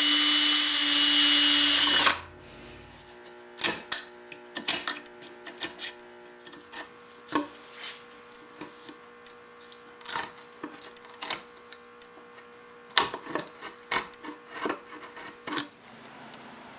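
Power drill boring into the wooden edge of a desk lid, running steadily for about two seconds and then stopping. After that comes a long run of sharp, irregular taps and knocks as the lock mortise is cleaned out with a chisel.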